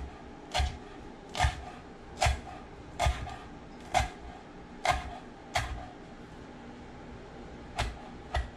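Chef's knife chopping cilantro on a wooden cutting board: the blade knocks on the board in a steady run a little under a second apart, pauses for about two seconds, then knocks twice more near the end.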